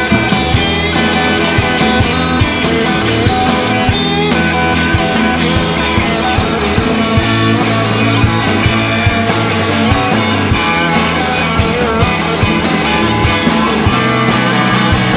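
Live blues-rock band playing an instrumental passage: electric guitars and bass over a steady, driving drum beat, the band coming in together with a hard hit at the start.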